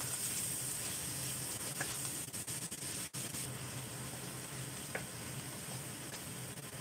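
Beef sizzling as it stir-fries in a stainless-steel wok, stirred with a wooden spatula, with a couple of faint knocks of the spatula against the pan.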